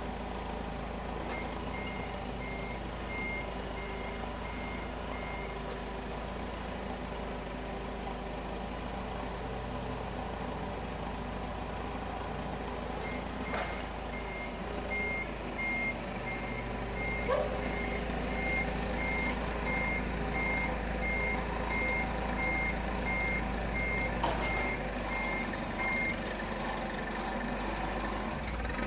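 A vehicle's reversing alarm beeping at one high pitch, about two beeps a second, in two runs with a pause of several seconds between them, over a steady low engine hum. A few light clicks stand out now and then.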